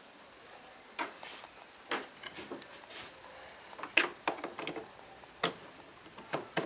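Irregular clicks and light knocks, roughly one a second, the loudest about four seconds in: buttons and controls on a portable speaker being pressed and handled.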